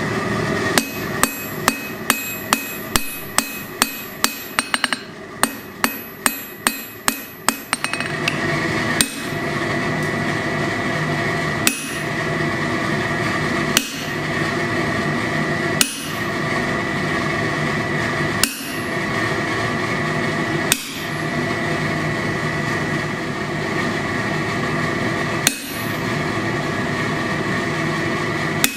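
Hand hammer striking hot steel on an anvil: a quick run of ringing blows, about three a second, for the first several seconds, then single knocks every two to three seconds over a steady hum.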